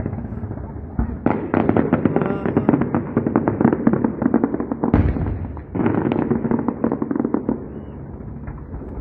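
Fireworks display: a dull boom about a second in, then dense, rapid crackling of bursting fireworks, with a second boom about five seconds in. The crackling thins out near the end.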